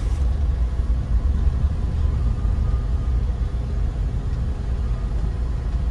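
Steady low-pitched engine and drivetrain noise inside the cabin of a 2018 Toyota Avanza 1.3 G manual driving slowly, its 1300cc dual VVT-i engine running. Engine and driveshaft sound come through into the cabin.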